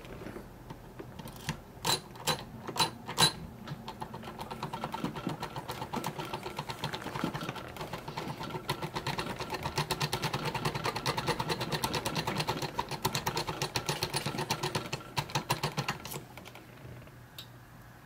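Brass key blank being rocked back and forth under turning pressure in a Master Lock No 40 disc padlock, impressioning it so the discs mark the blank. A handful of sharp clicks, then a fast steady clicking rattle for about twelve seconds that fades out near the end.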